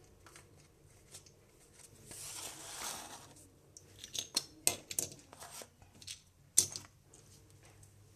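Small cardboard toy boxes and a toy train engine being handled and set down on a hard floor: a soft scraping rustle, then a run of sharp clicks and taps, the loudest a single click about six and a half seconds in.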